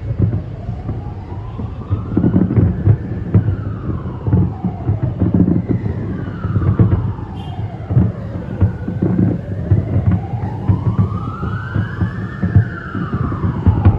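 Emergency-vehicle siren on a slow wail, its pitch rising and falling over about five seconds per sweep, with a second wail overlapping in the middle. Underneath run dense low thuds and rumble from fireworks bursts.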